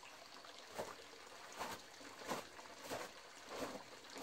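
Footsteps crunching on gravel: a person walking at an even pace, a step about every half to two-thirds of a second.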